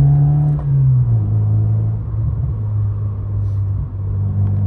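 Mazda MX-5's four-cylinder engine and exhaust, fitted with an aftermarket Malian rear silencer, droning while the car is driven. The revs fall about a second in, then it holds a steady lower note.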